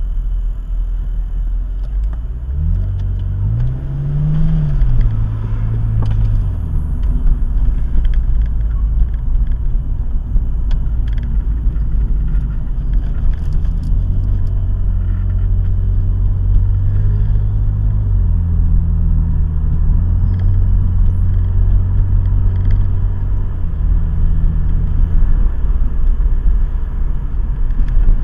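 A car's engine and road rumble heard from inside the cabin through a dashcam microphone. The engine pitch rises as the car pulls away, drops back a few seconds in, and then settles into steady driving with small rises and falls.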